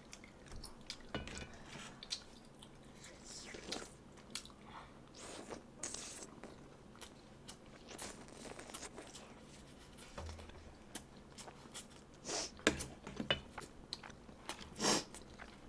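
Quiet, close-miked eating of tteokbokki: soft chewing and small wet mouth clicks, with a few short slurps as spicy sauce is sipped from a spoon.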